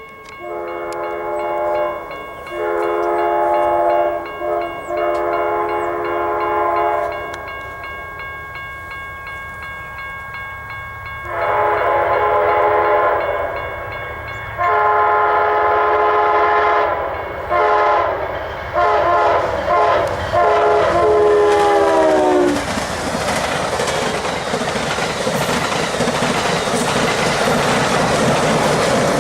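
Amtrak GE Genesis passenger locomotive's multi-note air horn sounding a long series of blasts, some long and some short, the final blast dropping in pitch as the locomotive passes. The loud rumble and rush of the passing passenger train then takes over.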